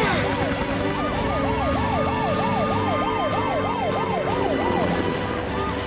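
Cartoon emergency-vehicle siren wailing quickly up and down, a few sweeps a second, over background music. It breaks off briefly about five seconds in and starts again.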